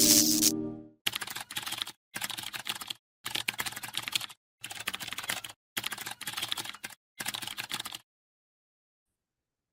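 Computer keyboard typing in six short runs of rapid clicks, each under a second long with brief pauses between them.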